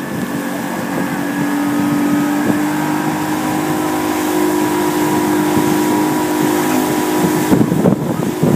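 Motorboat engine running steadily at towing speed over the rush of wake water and wind. About a second before the end the steady engine tone drops out and uneven, gusty noise takes over.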